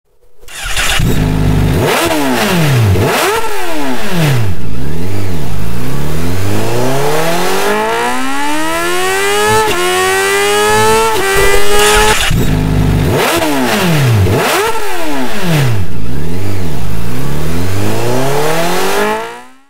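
Honda CBR1000RR Fireblade inline-four engine revving through a GRmoto aftermarket exhaust: a few quick throttle blips, then a long climb in revs over several seconds, then more quick blips before it cuts off.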